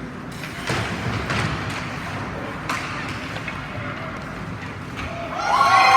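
Ice hockey game sounds: steady rink noise with a few sharp knocks of stick and puck. About five seconds in, a loud siren-like wail with several tones starts, rising and then bending, and the level jumps.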